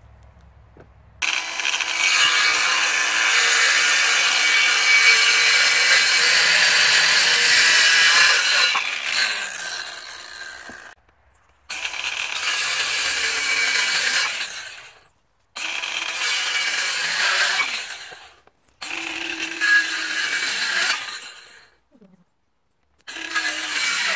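Ryobi cordless circular saw cutting through a wooden post: one long cut of about nine seconds, then four shorter bursts, the motor winding down with a falling whine after each.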